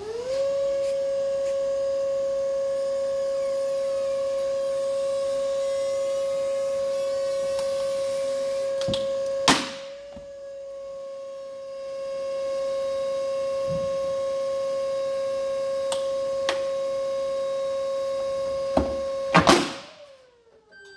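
Forklift whining steadily as it works its forks down onto a plastic core tray. The whine rises in pitch at the start, holds level, drops off briefly about halfway and ends with a falling pitch, with two sharp knocks, one about halfway and one near the end.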